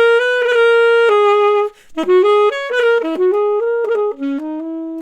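Solo saxophone playing a melody of quick short notes and longer held notes, with a brief pause for breath about two seconds in.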